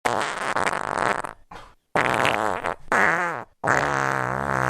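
A run of fart and burp sound effects: a raspy one lasting over a second, two short ones with wobbling pitch, then a long, steady-pitched one starting near the end.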